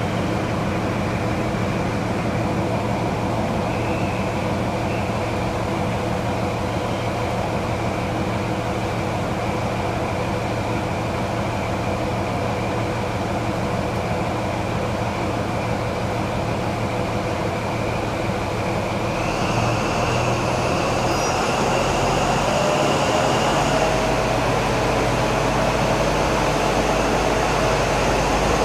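Class 43 HST power car's diesel engine running steadily at idle with a high whine, then about 20 seconds in it revs up, getting louder with a rising whine as the train begins to pull away.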